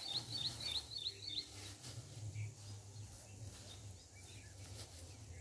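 A small bird chirping: a quick run of about six high, repeated notes in the first second and a half, then a few scattered faint chirps, over a low rumble.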